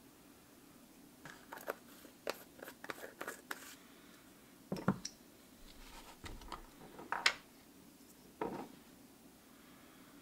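Small handling noises on a wooden workbench: a quick run of light clicks and taps, then a few louder knocks and scrapes as the carved wooden lure, a stick and a jar of baking soda are handled and set down.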